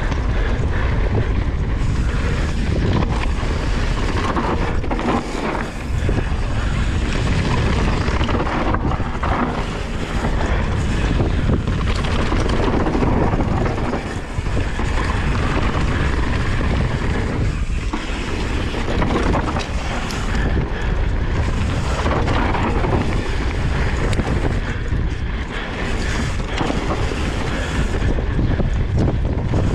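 Wind buffeting the microphone of a camera on a mountain bike descending a dirt trail at speed, with the Yeti SB150's knobby tyres rolling over loose dirt and stones and the bike clattering over bumps.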